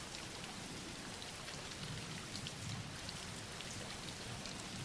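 Steady soft rain falling on a surface, with scattered small drop ticks over an even hiss.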